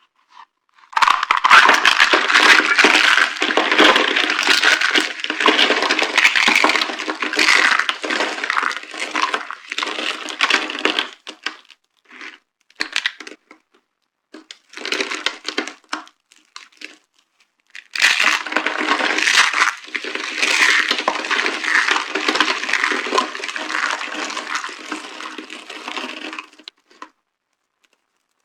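Dry soap boxes being crushed, crunching and crackling densely. It comes in two long spells, with short scattered cracks in the pause between them.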